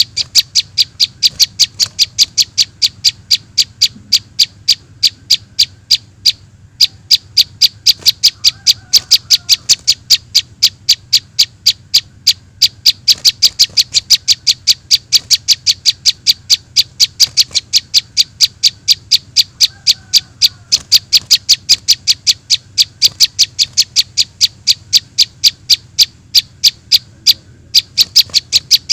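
Juvenile prinia (prenjak) lure call: a rapid, evenly repeated string of short high chips, several a second, broken by a few brief pauses.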